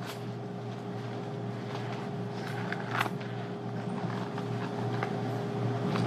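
Steady low hum of room tone with a faint steady tone, broken by a few short, soft rustles or clicks about halfway through.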